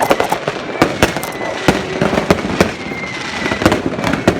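Fireworks going off in quick, irregular succession, sharp bangs and cracks over a continuous crackle, with a thin high whistle drifting slowly down in the background.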